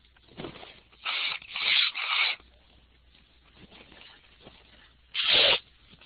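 Short bursts of noise picked up on a webinar presenter's open microphone: a faint one just under half a second in, three loud ones close together about a second in, and one more near the end.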